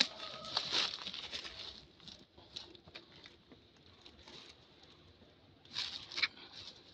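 Rhesus macaques giving short, squeaky, hissing threat calls in bursts: one burst at the start and another about six seconds in.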